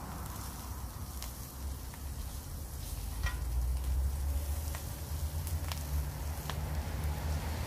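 Halved sausages sizzling in a frying pan, with several light clicks of metal tongs against the pan as they are turned. A low rumble runs underneath and grows louder about halfway through.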